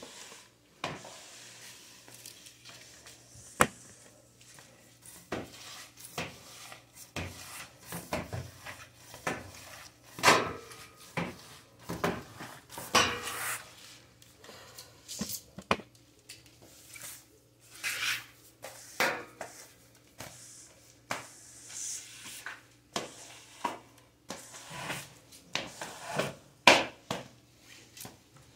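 Floor squeegee worked over wet ceramic tile: the rubber blade scraping and swishing water along, with irregular sharp knocks as the head and handle hit the floor.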